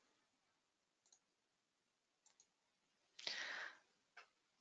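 Near silence with a few faint computer mouse clicks. About three seconds in, a short soft rush of noise, then one sharper click just after.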